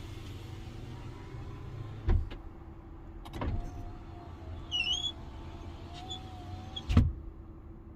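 Passenger-door power window motor driven by a scan-tool window calibration test: a low hum that ends in a thud about two seconds in, then a second run with a faint whine that ends in a louder thud near the end as the glass reaches its stop.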